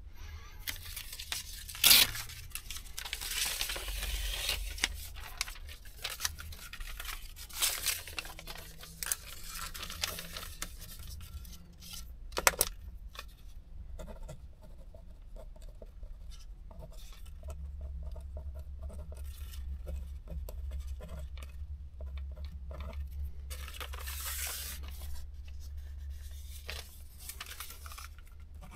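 A paper tachograph printout strip being torn off and handled, with a sharp tear about two seconds in and another near the middle, then rustling paper and a pen scratching on it. A low steady hum runs underneath.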